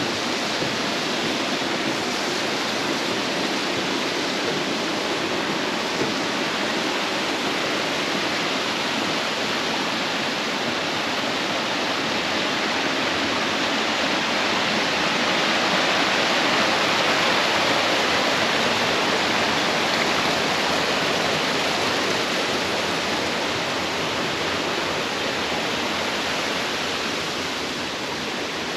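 Steady rush of falling water, a dense even hiss that grows a little louder about halfway through and eases again near the end.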